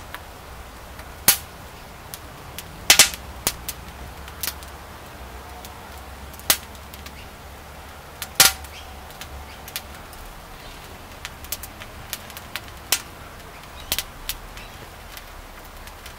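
A wood fire of chopped pine and sticks crackling, with sharp irregular pops: a handful of loud snaps among many small ticks.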